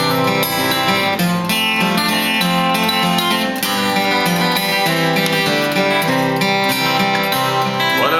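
Acoustic guitar playing the instrumental introduction to an old gospel song, strummed chords changing steadily, with no singing yet.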